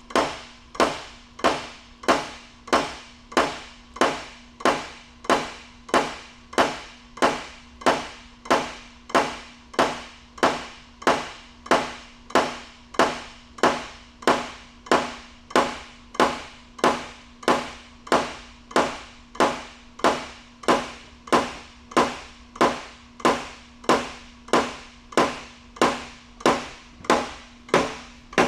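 Motor-driven jolting table repeatedly lifting and dropping a steel three-gang prism mold of fresh mortar, making sharp metal knocks at a steady rate of about three every two seconds over a steady hum. The jolting compacts the mortar in the mold.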